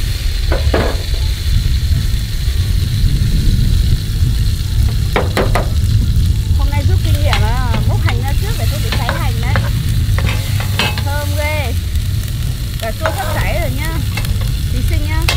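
Chopped tomatoes sizzling as they fry in hot oil with shallots in a pan, stirred now and then, over a steady low rumble.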